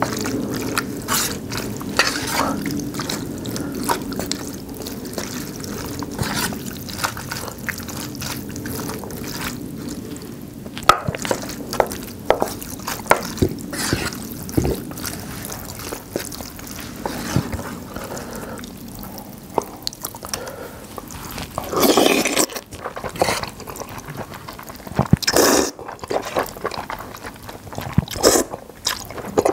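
Close-miked eating of a saucy spicy seafood-noodle stew (jjamppong jjageuli): wet, liquid mouth and utensil sounds with many small clicks, and two longer, louder noisy swells in the later part.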